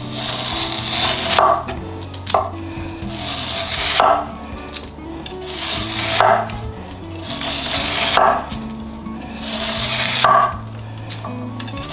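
Chef's knife shaving the skin off a yam on a wooden cutting board: about five long, rasping downward strokes, each ending in a light knock as the blade reaches the board.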